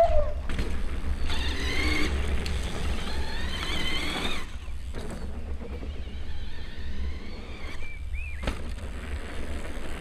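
CYC X1 Pro Gen 4 mid-drive e-bike motor whining, rising in pitch as it accelerates in two surges during the first half, then fainter, over a steady low rumble.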